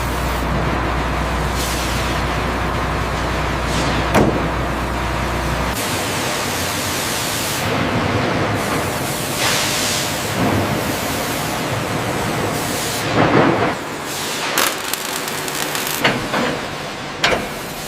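Heavy-machinery factory floor noise: a steady machine hum and hiss. The low hum drops out about a third of the way in, and several sharp knocks follow in the second half.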